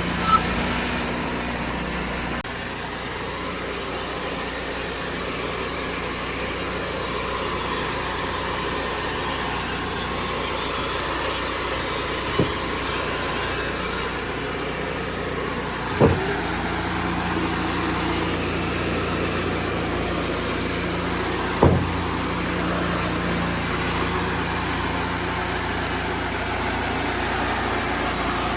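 Sawmill engine running steadily, with a few sharp knocks, one a little after the start and others about 12, 16 and 22 seconds in.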